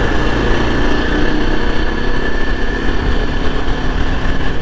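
Yezdi Adventure's single-cylinder engine running steadily at cruising speed, with wind rushing over the microphone.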